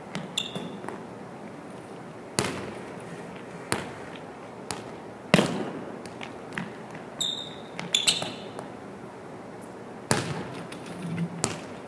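A volleyball being struck and bouncing on a hardwood gym floor: sharp, echoing smacks about every one to three seconds, the loudest about five and ten seconds in. Sneakers squeak on the court near the start and again about seven to eight seconds in.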